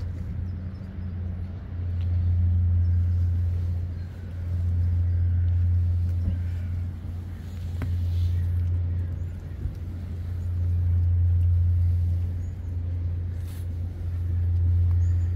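A steady low rumble that swells and eases every few seconds, with a faint click near the middle.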